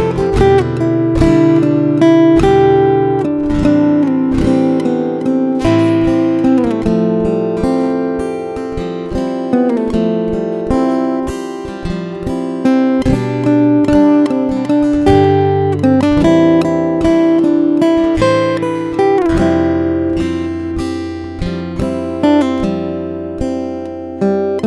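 Background music: an acoustic guitar playing a steady run of plucked and strummed notes, with no singing.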